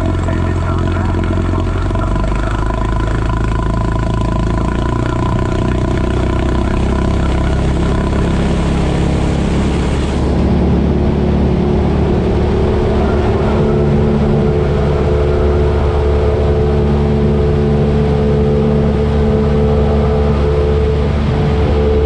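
Cessna light aircraft's piston engine and propeller running steadily. Its pitch climbs over several seconds and it gets louder about halfway through as power is added.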